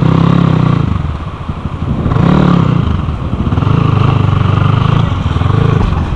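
Dirt-bike engine revving in three surges of throttle, pitch rising and falling with each, as the bike churns through deep mud.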